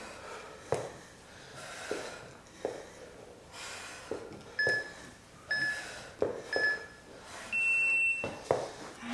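Workout interval timer counting down the last seconds of an exercise: three short electronic beeps about a second apart, then one longer, higher beep that marks the switch to the rest period.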